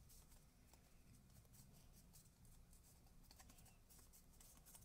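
Near silence with faint rustles and light ticks of cardstock pressed between fingers, holding a freshly glued paper detail piece onto a gift card holder.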